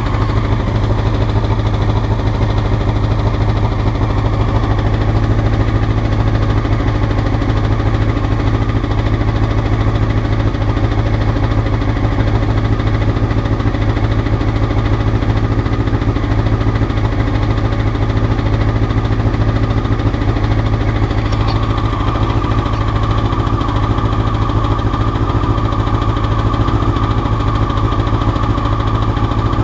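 Honda CBR motorcycle engine idling steadily and roughly. A higher tone joins in about two-thirds of the way through.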